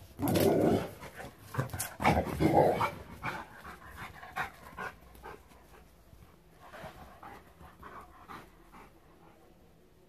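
A Rottweiler panting and scuffling about, with two loud, rough bursts of noise in the first three seconds, then short rustles and scuffs that die away by about three-quarters of the way through.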